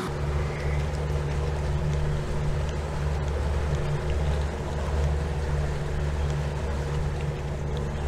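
Boat's outboard motor running steadily under way at cruising speed, a low even drone with a hiss of water and wind over it.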